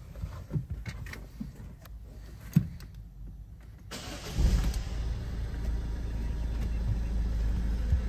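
A few sharp clicks, then about four seconds in the 2017 Citroen Berlingo's 1.6 HDi diesel engine cranks and fires. It settles straight into a steady idle.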